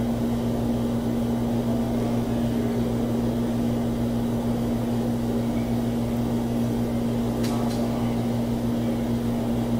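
A steady low hum with one constant pitch, unchanging throughout, with a couple of faint ticks about seven and a half seconds in.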